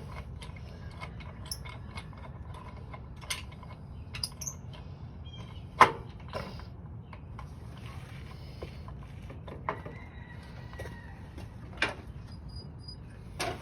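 Scattered light metal clicks and taps, with one sharper click about six seconds in, as starter mounting bolts are threaded by hand into a Kohler Command V-twin engine block.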